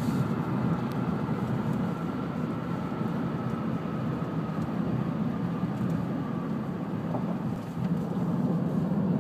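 Steady road and tyre noise heard inside a moving car's cabin, a low, even rumble that grows slightly louder near the end.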